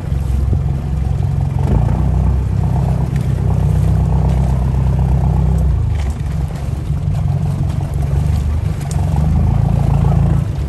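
Boat engine running at low revs with a steady low rumble.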